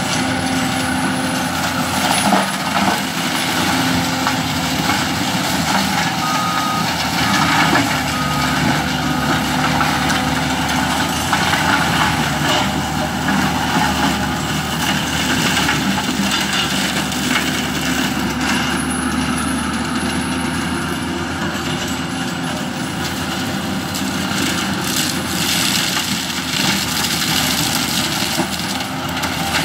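Bobcat T870 compact track loader's diesel engine running hard while its 50-inch two-speed Bobcat forestry mulcher drum spins, its knives grinding through brush and small pines: a dense, steady, loud mechanical din with scattered sharp hits from wood striking the cutter.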